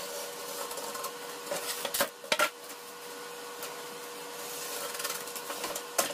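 Utility knife blade drawn through rigid foam insulation board along a steel straightedge, a continuous scraping rub, with a few sharp clicks about two seconds in.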